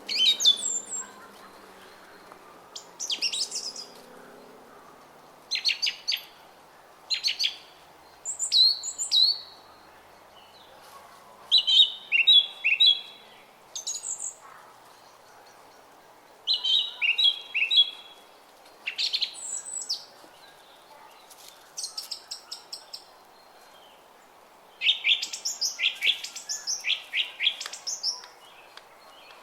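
Songbirds singing in short, high, chirping phrases that come every second or two, some phrases quick runs of repeated notes, over a steady low background noise.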